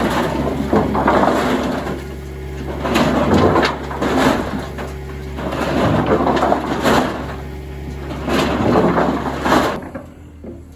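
Rotating mesh drum of a Flipscreen WL130 screening bucket tumbling wood inside it in repeated rattling surges about every second or so as it sifts dirt out, over the wheel loader's engine running steadily. Near the end it cuts off suddenly to a quieter engine sound.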